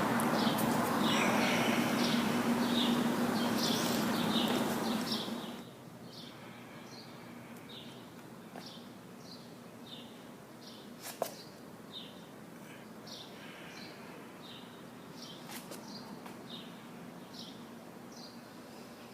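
A small bird chirping over and over, short high chirps about every half second. Under it, a steady hum with a rushing noise stops suddenly about five seconds in.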